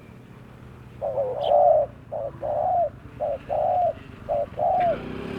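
Spotted dove (tekukur) cooing one song phrase of about seven notes, alternating long and short coos, starting about a second in.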